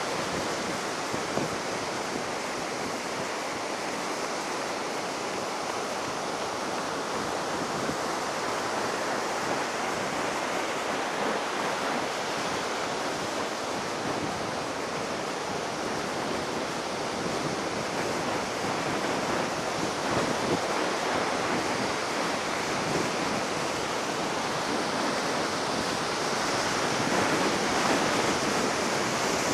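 Ocean surf breaking on a sandy beach, a steady wash of waves that swells louder near the end; the waves are high after a typhoon.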